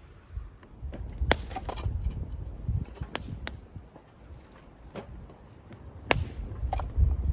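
Firewood being chopped: about five sharp knocks of a blade into wood, spaced irregularly, over a low rumble.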